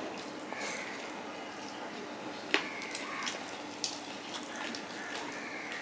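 Fingers picking at fried hilsa fish and rice on a steel plate, with a few sharp clicks, the loudest about halfway through, over a steady background hiss.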